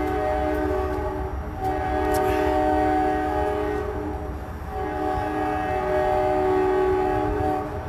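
Train air horn sounding a multi-note chord in long blasts, with short breaks about a second and a half and four and a half seconds in, over a low rumble.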